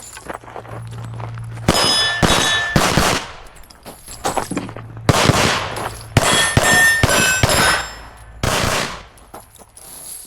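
A string of pistol shots spread over about seven seconds, irregularly spaced, several of them followed by the bright ring of steel plates being hit.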